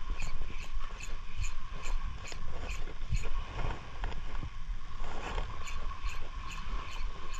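Spinning reel being wound in to retrieve a lure on an ultralight rod: an even ticking of about three to four ticks a second over a steady low rumble.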